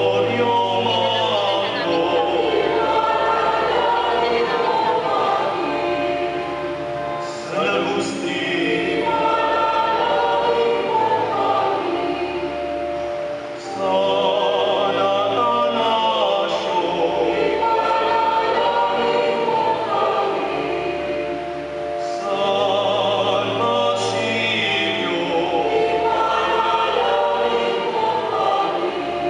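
Church choir singing a hymn in several parts over steady low accompanying notes, in phrases that begin afresh about every seven or eight seconds.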